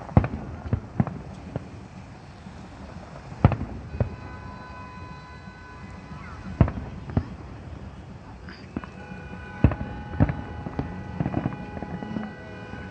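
Aerial fireworks shells bursting overhead: a string of sharp bangs at irregular spacing, a few close together, the loudest about three and a half seconds in and near the ten-second mark. A held tone sounds underneath midway and again over the last few seconds.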